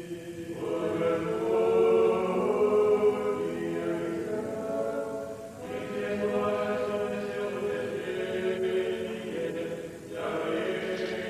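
Russian Orthodox liturgical chant, sung in long held phrases that break off briefly about five and a half seconds in and again near ten seconds.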